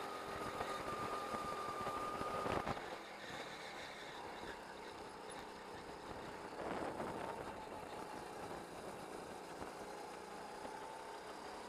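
Go-kart engine heard from the driver's seat, running at steady high revs, then dropping off abruptly with a knock about three seconds in as the throttle is lifted for a corner. The revs then climb slowly again toward the end as the kart accelerates out.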